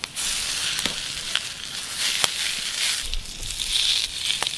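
Yakisoba noodles sizzling as they are stir-fried in a hot pan, the hiss starting suddenly as the food goes in, with a few sharp pops. The noodles are pre-made and only being warmed through.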